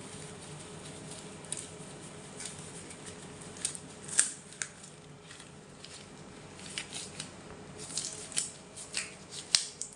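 Sterile supplies being handled with gloved hands: scattered sharp crinkles and clicks, over a steady low machine hum.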